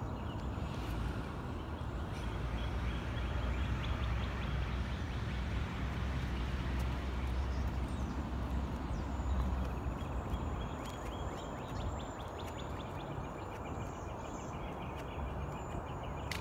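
Outdoor ambience: birds chirping in quick repeated trills over a steady low rumble, which eases about ten seconds in.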